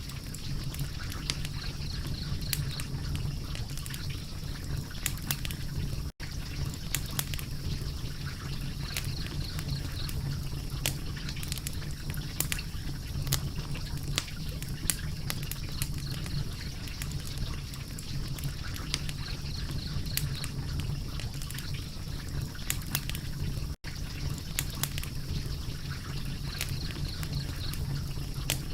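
Wood fire crackling: a steady hiss and low rumble with frequent sharp, irregular pops and snaps. The sound cuts out for an instant twice, about 6 seconds and about 24 seconds in.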